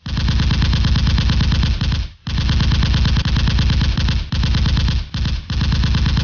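Rapid automatic gunfire as an added sound effect, in long bursts with short breaks about two seconds in and twice more between four and five and a half seconds.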